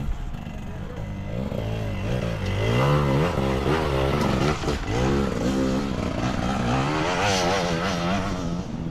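Enduro dirt bike engine revving up and down over and over, the throttle worked in repeated bursts as the bike climbs a steep, rocky slope.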